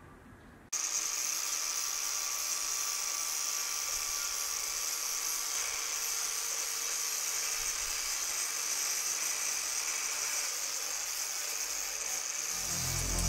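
Angle grinder's spinning disc cutting through a bundle of corrugated plastic conduit. It is a steady, hissing, high-pitched whine that starts abruptly just under a second in.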